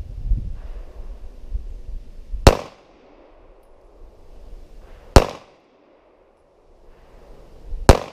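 Kel-Tec PF9 9mm pistol firing three shots in slow, evenly spaced fire, about two and a half seconds apart, each a sharp crack with a short echo. A low rumble comes before the first shot.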